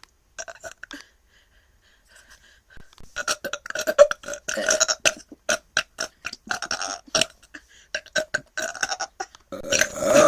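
A person burping over and over in a long, rapid run of short, choppy belches, starting about three seconds in and getting denser and louder near the end.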